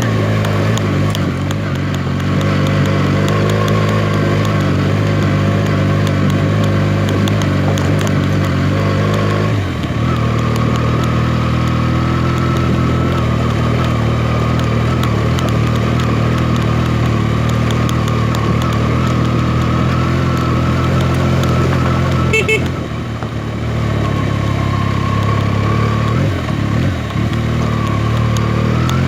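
Benelli TNT 300's parallel-twin engine running steadily while the motorcycle is ridden, with a brief dip in the engine note about ten seconds in and again about three-quarters of the way through.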